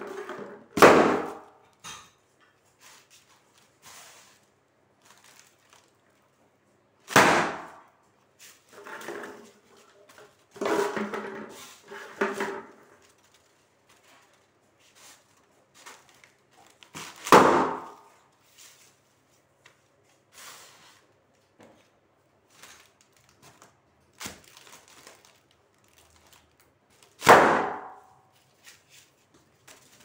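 Foil letter balloons bursting under a stamping foot: four loud, sharp bangs spread through the stretch, with smaller crackles and rustles of the foil in between.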